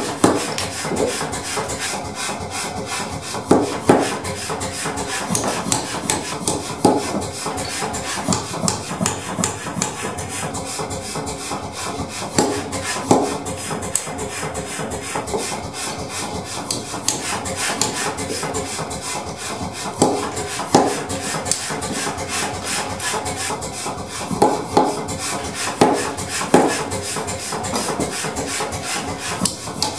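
Mechanical power hammer forging a red-hot steel hammer-head blank in a fast, even run of blows, with louder clanks every few seconds.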